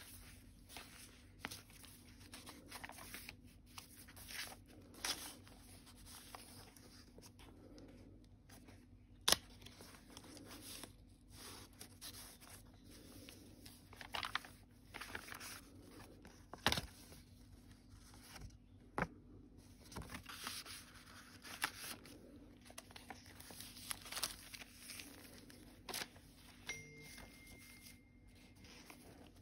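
Paper pages of a thick handmade journal being turned and handled: faint rustling and crinkling, with a few sharp paper snaps or taps, the loudest about 9 and 17 seconds in.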